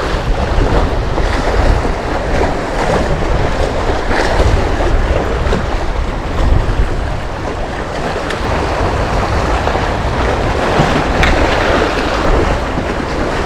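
Wind buffeting the microphone over the steady wash of sea waves, with a heavy low rumble.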